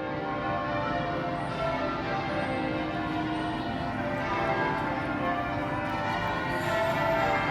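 Church bells ringing, very loud: a continuous run of struck bell tones at several pitches, each new strike overlapping the ringing of the ones before.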